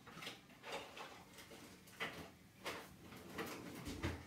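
Faint, scattered knocks and bumps, about five in four seconds, from someone moving about out of sight.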